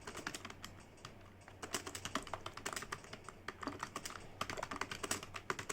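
Rapid typing on a computer keyboard: a quick, uneven run of key clicks, with a short lull about a second in before the keystrokes pick up again.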